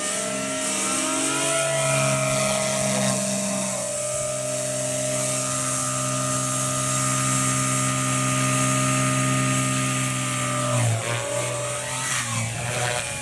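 Gaui X3 electric RC helicopter flying: the steady hum of its rotor and electric motor at a constant pitch, the tone shifting in the first few seconds and wavering up and down from about eleven seconds in.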